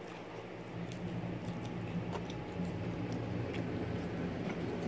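Two people chewing and biting into bone-in chicken wings, with small wet mouth clicks and ticks scattered through. A steady low hum runs underneath.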